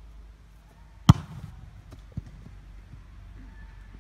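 A football kicked with a sharp, loud thump about a second in, followed by a softer thump about a second later, over a low steady rumble.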